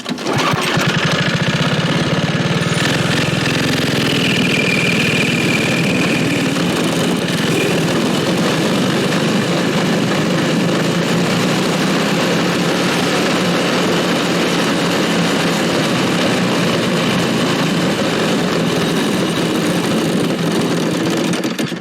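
Small Tecumseh H35 single-cylinder engine running steadily, then cutting out near the end: it is starved of fuel because the fuel tap was never turned on.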